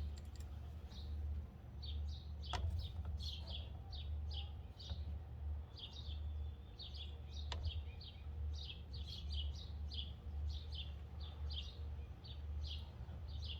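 Small birds chirping in quick, repeated short notes, over a low steady hum. Two faint clicks come about two and a half and seven and a half seconds in.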